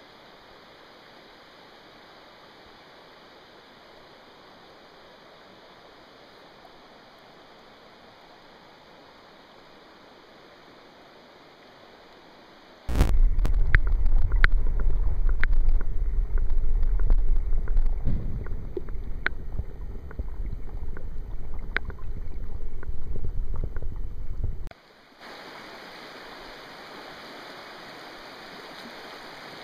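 River water flowing: a faint steady rush at first, then, about thirteen seconds in, a loud low rumble of the current heard underwater, with scattered sharp clicks, for about twelve seconds. It then cuts suddenly to the steady rush of shallow water running over pebbles.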